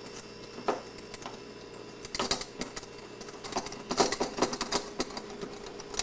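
A stirring utensil knocking and scraping against a mixing bowl as a stiff flour-and-oil dough is stirred: irregular clicks and clacks that come in bunches, busiest around two and four seconds in.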